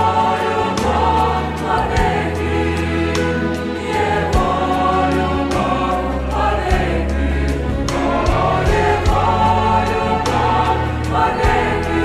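Mixed choir of young men's and women's voices singing a sacred choral song, continuous and full throughout.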